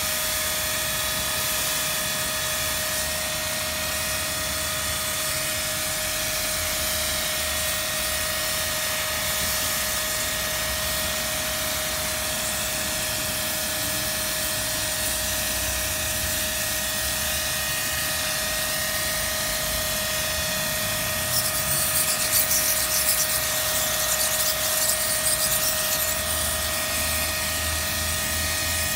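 Sun Joe battery-powered pressure washer running, a steady motor-and-pump whine under the hiss of its water jet spraying an air-conditioner evaporator coil. About three quarters of the way through, a louder, uneven spattering joins in for a few seconds.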